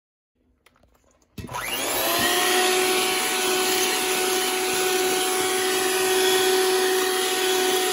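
Electric stand mixer switching on about a second and a half in, its motor whine rising and settling to a steady pitch as the whisk beats egg whites in a stainless steel bowl until frothy.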